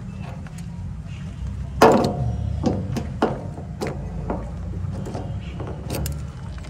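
Sharp metallic clicks and knocks as a backhoe loader's tank filler cap and padlock are handled, with one louder knock about two seconds in and several lighter clicks after it, over a steady low rumble.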